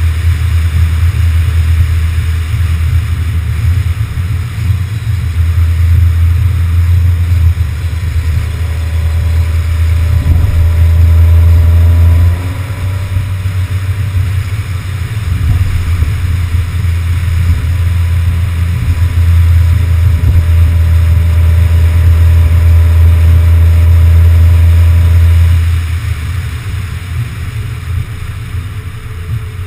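Car driving at road speed, heard through a camera mounted on the outside of the body: a loud, steady low rumble of wind on the microphone and road noise, with a faint engine hum. The rumble drops back about twelve seconds in and again near the end.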